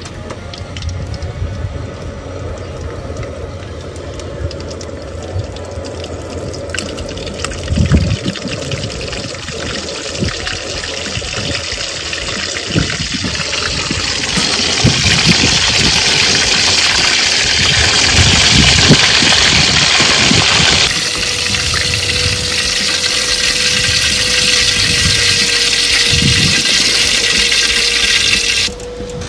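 Baby corn deep-frying in a wok of hot oil, sizzling steadily, growing louder about halfway through.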